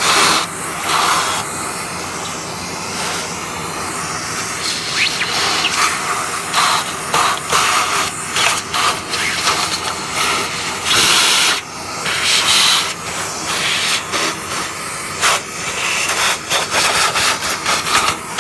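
Vacuum cleaner running as its nozzle is worked over a dirty computer keyboard. There is a steady loud hiss, with frequent short surges and dips as the nozzle meets and leaves the surfaces.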